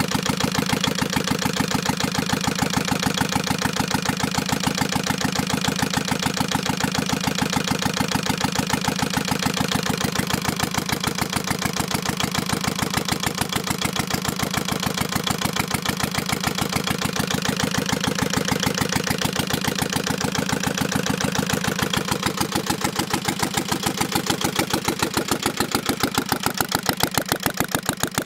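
Old Hangzhou horizontal, water-cooled stationary diesel running steadily at idle with no muffler fitted, giving an even, rapid chugging beat straight from the open exhaust port.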